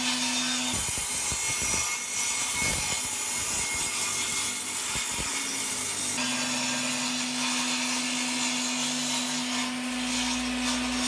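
A power saw cuts through a length of timber. The motor's steady hum breaks up for several seconds under load as the blade goes through the wood, then runs evenly again with the blade free.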